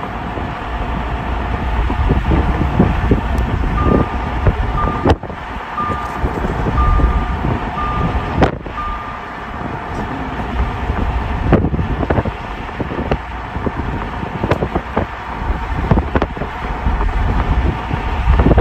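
Road and wind noise of a car driving at speed, a steady low rumble with gusty buffeting on the microphone. About four seconds in, a short electronic beep repeats six times, a little under once a second.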